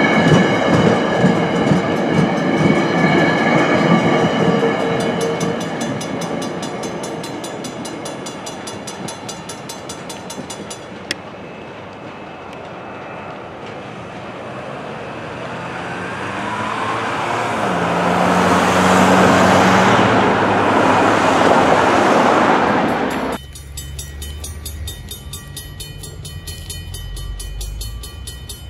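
Passenger train coaches rolling past a grade crossing with the crossing bell ringing. The rolling noise fades, then swells again as the train approaches, loudest shortly before it cuts off suddenly. A quieter crossing bell rings steadily near the end.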